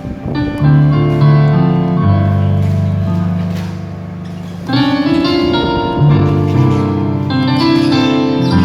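Artesia MA88 digital piano playing a slow passage of held, sustained chords on one of its built-in voices. The sound fades a little near the middle, then a fresh chord enters about halfway through.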